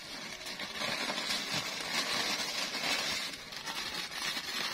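Plastic shopping bag and plastic-wrapped instant noodle packets rustling and crinkling as they are handled and taken out of the bag.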